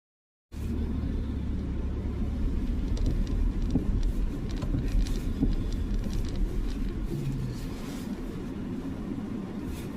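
A car driving, with a steady low rumble of road and engine noise that starts abruptly after a half-second gap of silence.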